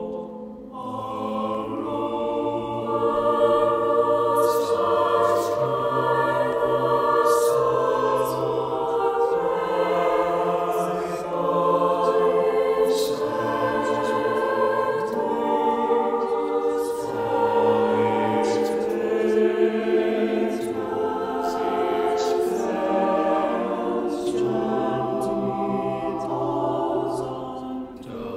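Mixed-voice chamber choir singing held chords in several parts, men's and women's voices together. The low voices drop in and out between phrases. The choir is a virtual one, with each singer recorded separately and the voices mixed.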